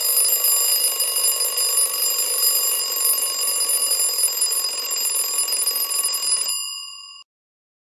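Countdown timer's end alarm: a loud, continuous alarm-clock bell ringing rapidly. It stops about six and a half seconds in, and the bell tone lingers a moment before cutting off.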